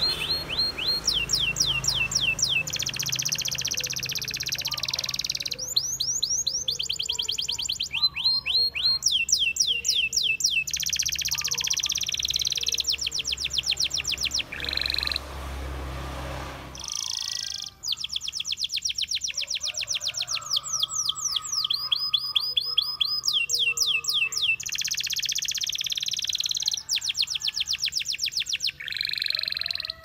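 Canary singing a long, continuous song of fast trills and runs of quick falling whistled notes, with a brief break about halfway through.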